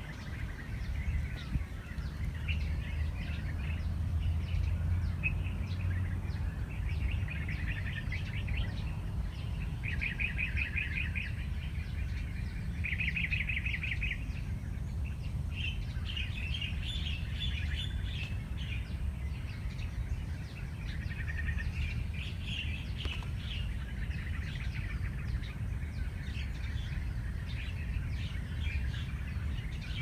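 Small songbirds chirping: many short high chirps throughout, with two rapid trills of about a second each near the middle, over a steady low rumble.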